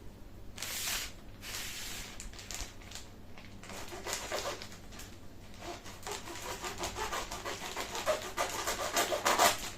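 Plastic food packet of marinated chicken being handled and opened, with rubbing and crinkling of the plastic in uneven stretches.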